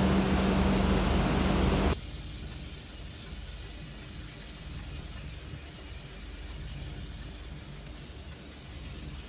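Passenger train running, heard from inside the carriage. A loud rumble with a steady hum drops abruptly about two seconds in, leaving a quieter, even rumble.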